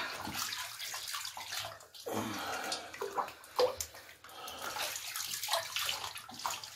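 Water splashing and sloshing irregularly as a cat is washed while floating in a bath of warm water.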